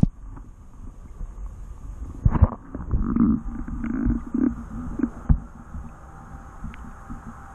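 Muffled low thumps and sloshing of lake water against a camera's waterproof housing sitting at the waterline, with a cluster of knocks about two seconds in and muffled rumbling over the next couple of seconds.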